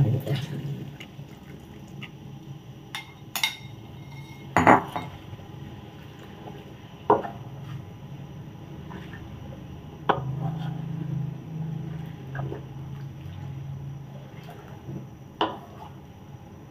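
Coconut milk pouring into a metal wok of pandan agar-agar mixture at the very start, then a spatula stirring and scraping in the wok, with a few sharp knocks of the spatula against the pan.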